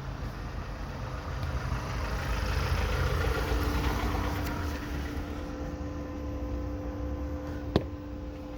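Low rumble of a motor vehicle engine, swelling and easing off, with a steady hum that comes in about three seconds in and a single sharp click near the end.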